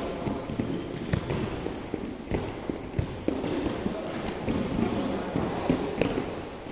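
Irregular thuds and slaps ringing around an indoor sports hall: balls bouncing and feet landing on the court.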